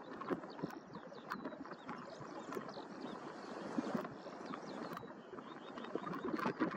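Steady rushing outdoor noise with scattered short, high bird chirps and whistles throughout.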